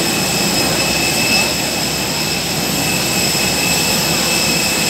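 Airbus A321 jet noise: a steady rush with several thin, high-pitched whining tones held constant throughout.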